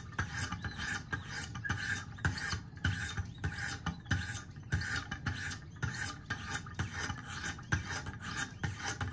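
Sharpening stones on a Wicked Edge guided sharpener rasping along a pocket knife's steel blade in quick alternating strokes, one side then the other, in a steady rhythm. The blade edge is being ground down to remove chips and re-form the tip.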